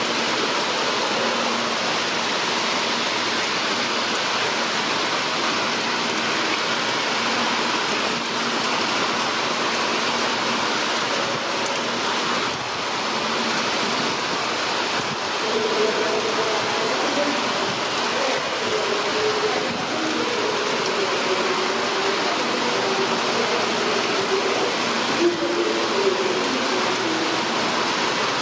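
Steady rushing noise of a Boeing 787-9's jet engines at low taxi power, mixed with rain. About halfway through, a faint wavering tone joins in.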